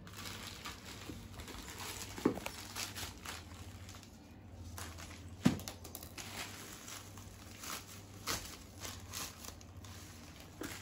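Plastic courier mailer bag crinkling and rustling as it is cut and pulled open by hand, with two brief sharp sounds about two and five and a half seconds in.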